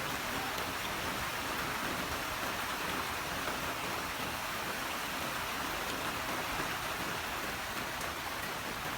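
Heavy rain falling, a steady even hiss with no thunderclap.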